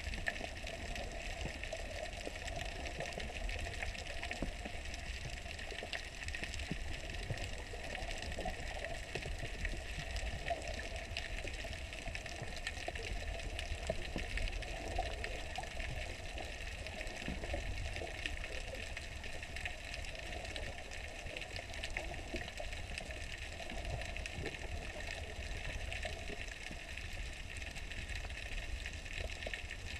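Steady, muffled water noise recorded with the camera held just below the sea surface, with a low rumble underneath.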